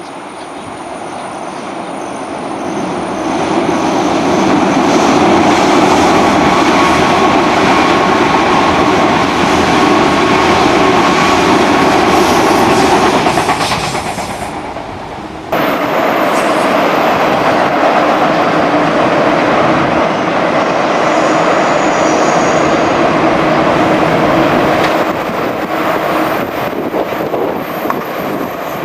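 Trains passing close by at speed: a loud rumble of wheels on rail and running gear, with a steady tone in it, building over the first few seconds. About halfway through it fades, then cuts abruptly to a second train passing.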